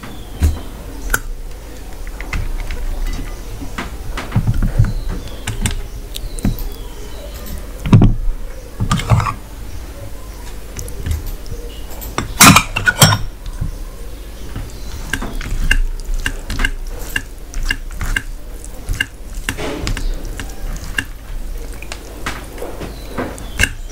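Steel and glass bowls clinking and clanking against a steel plate as curries are served onto rice and mixed in by hand, with several louder clanks in the middle.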